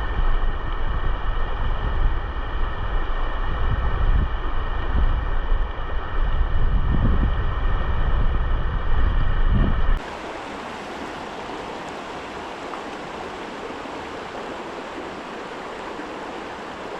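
River water rushing past, with heavy wind buffeting on the microphone for about the first ten seconds. The wind noise then cuts off abruptly, leaving the steady, softer rush of the stream.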